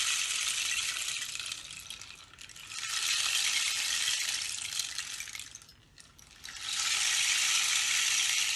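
Rain stick (pau-de-chuva) being tipped: a rushing trickle of pellets falling through it, imitating rain. One pour fades out, then two more begin about two and a half and six and a half seconds in, each lasting about three seconds.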